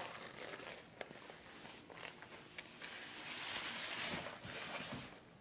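Fabric rustling and scraping against a tile floor as a cat scrambles about inside a cloth sleeve, with a few light clicks.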